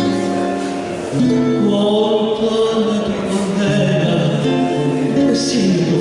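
Tango song: a male singer holding long notes over guitar accompaniment.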